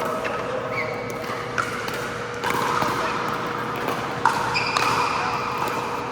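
Pickleball play in an echoing gym: a few sharp pops of paddles striking the ball, with high, drawn-out squeaks of court shoes on the floor and a faint steady hum behind.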